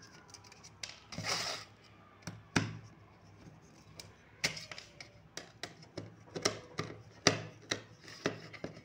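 Screwdriver turning small screws out of the back plate of an LED ceiling panel light: scattered sharp clicks as the screws and driver tip work, with a short scrape a little over a second in.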